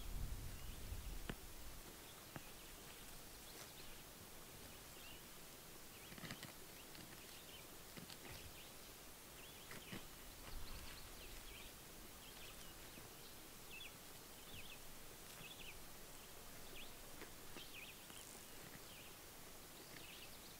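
Quiet outdoor ambience with faint, scattered short high chirps and a few soft clicks; a low wind rumble on the microphone in the first second or two.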